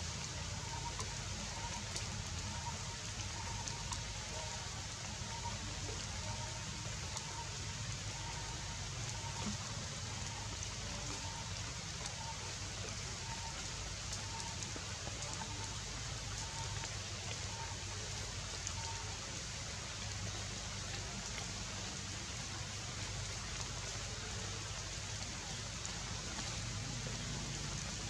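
Steady outdoor background hiss, even like light rain or forest noise, with faint short chirps repeating at an even pace.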